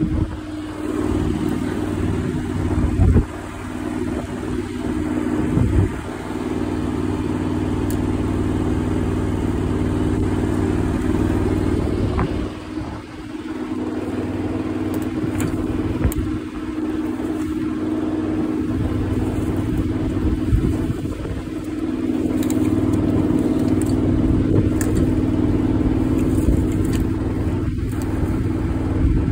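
An engine running steadily at idle, with a few knocks and rustles of branches being moved.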